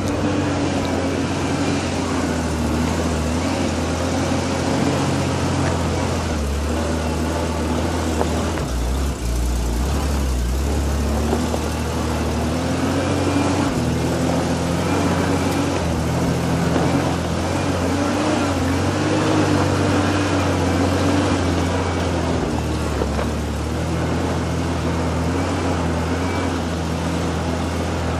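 Vehicle engine running steadily under load as it climbs a steep, rough dirt track, heard from inside the cab. The drone's pitch wavers slightly up and down.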